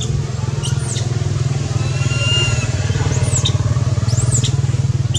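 A small engine running steadily nearby, a continuous low rumble with a fast even pulse. A few short, high chirps rise and fall over it.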